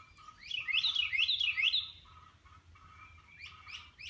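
Small bird chirping: a quick run of short, sweeping chirps from about half a second to two seconds in, then fainter chirps. A lower steady note comes and goes beneath them.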